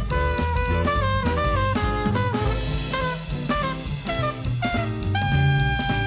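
Jazz band playing a swing tune: a horn solo over a walking bass line and drum kit, the horn holding one long note near the end.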